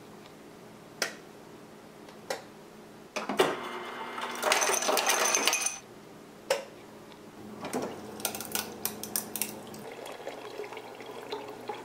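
Refrigerator door ice dispenser running: a humming motor with ice cubes clattering out for a couple of seconds, then more scattered clinks and clicks of cubes. A few single clicks come before it.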